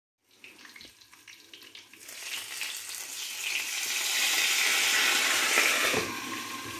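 Belyashi (fried meat pies) sizzling in a frying pan, the hiss building a couple of seconds in and easing near the end, with a light knock about six seconds in.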